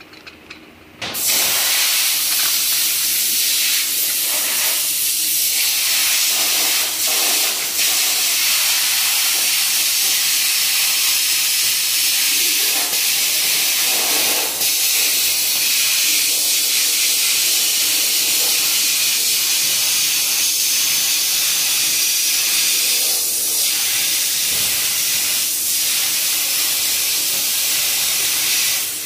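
Compressed air blowing in a loud, steady hiss that starts suddenly about a second in and runs for nearly half a minute with a few brief swells, then cuts off near the end.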